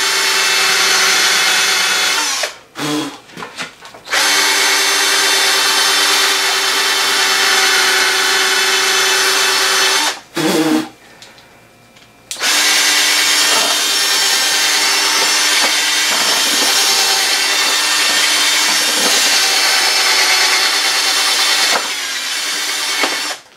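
Cordless drill running at steady speed with its bit in the pivot bore of an outboard's tiller bracket, clearing out salt buildup. It runs in long stretches, stopping briefly about two and a half seconds in and again about ten seconds in, then cuts off near the end.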